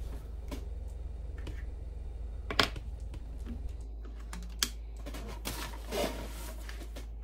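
Sharp mechanical clicks and clacks from handling a PCP air rifle at the bench, a handful at uneven intervals with the loudest about two and a half seconds in, over a low steady hum.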